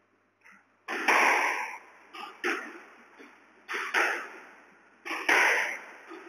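Squash rally: the ball is struck by rackets and hits the walls, making sharp double knocks about every second and a half. Each knock rings out in the court's echo.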